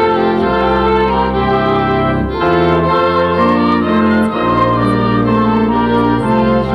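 Church organ playing slow, sustained full chords over a held bass line, the chords changing every second or so.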